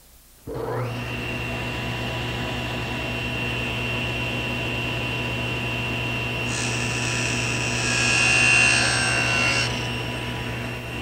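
Power saw starting up and spinning up to speed with a rising whine, then running steadily. From about six and a half seconds in, it cuts through a piece of wood for about three seconds, and it keeps running after the cut.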